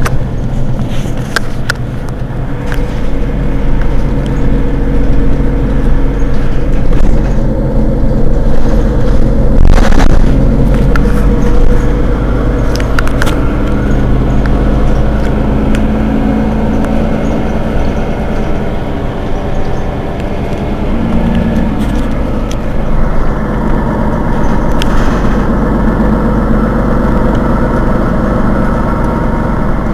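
Mercedes-Benz Citaro G C2 articulated bus's diesel engine idling steadily while the bus stands still, with a few short sharp clicks over it, the strongest about ten seconds in.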